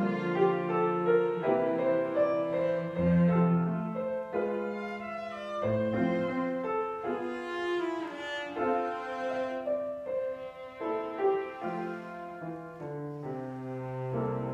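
Piano trio of violin, cello and piano playing a classical piece live, bowed string lines over piano.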